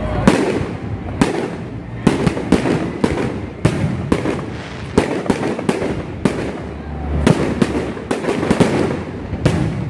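Fireworks display: aerial shells bursting overhead one after another, sharp bangs at an uneven pace of about two a second.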